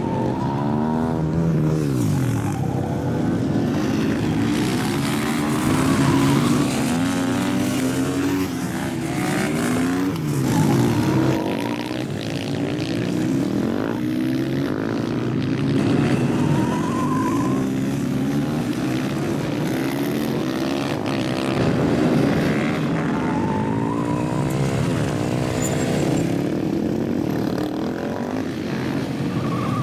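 Several supermoto racing motorcycles running hard on track, engines repeatedly revving up through the gears and dropping back as the bikes brake for corners, with more than one bike heard at once as they pass.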